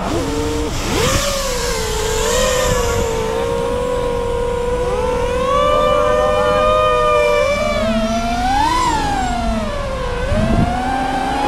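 Brushless electric motors of an FPV quadcopter whining in flight, the pitch rising and falling with the throttle, with a sharp rise and fall in pitch near the end.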